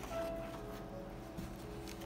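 Background music of sustained held notes, with a brief paper rustle near the end as a large print sheet is handled.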